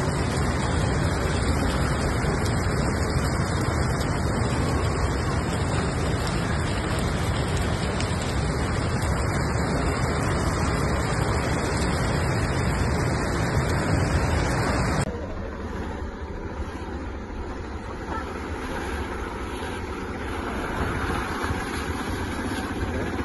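Steady, loud roar of a heavy hailstorm, hail and rain pouring down. About fifteen seconds in it cuts to a quieter wash of noise with a faint low hum: a car driving through a flooded road.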